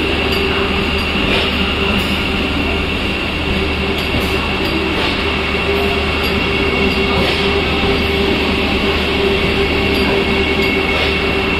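Vande Bharat Express electric multiple unit rolling slowly along the platform as it arrives: steady rumble of the coaches' wheels on the rails with a constant whine and scattered clicks.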